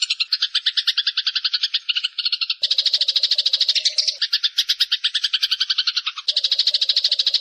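Eurasian tree sparrow (burung gereja) chattering in a rapid, continuous run of about ten chirps a second. The chatter changes character abruptly twice, about two and a half seconds in and again near the end, as if from one recording to another.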